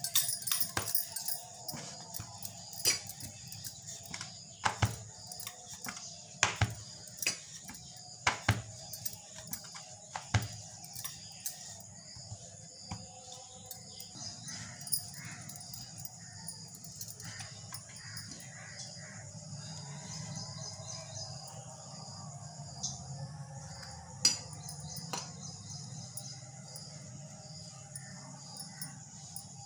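Wooden rolling pin knocking and rolling on a plastic cutting board as dough is rolled out, with bangles jingling on the wrist; the irregular knocks stop about eleven seconds in, leaving softer handling sounds and an occasional click.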